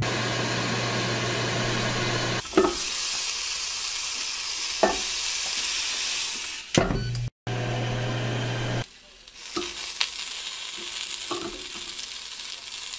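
Onion slices sizzling on the hot grill grate of a Ninja Foodi Grill, with sharp taps of tongs on the grate as the slices are laid down and later flipped. A steady low hum is heard at first.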